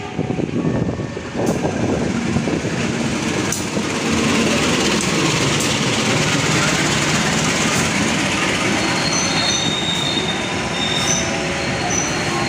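A diesel-hauled passenger train passes close along a station platform: the steady rolling rumble and rail noise of the coaches, growing louder about four seconds in. Thin high-pitched wheel squeals come in several times from about nine seconds in.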